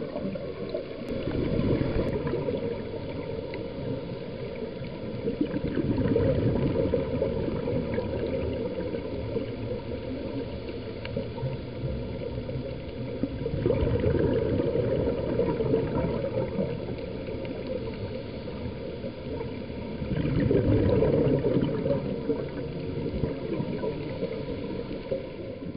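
Underwater bubbling of a scuba diver's exhaled breath leaving the regulator, over a steady low wash of water. The bubbling swells in four louder surges several seconds apart, one with each exhalation.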